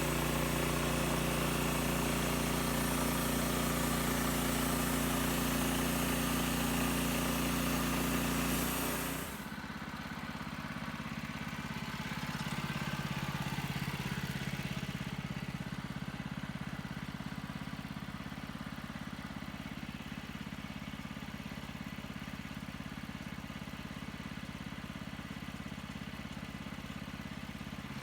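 Portable sawmill's gas engine running under load while the blade saws through a poplar log, with a steady rush of cutting over the engine. About nine seconds in, the cutting noise stops abruptly and the engine carries on at a lower, steady idle.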